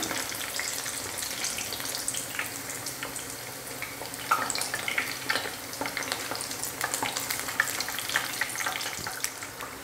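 Cowpea (karamani) vadais deep-frying in hot oil in a kadai: a steady sizzle full of small crackles, as a steel slotted spoon stirs and turns the fritters over.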